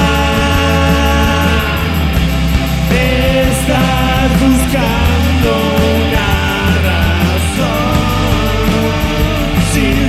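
Rock band playing live: a man singing over keyboards, electric guitar and drums.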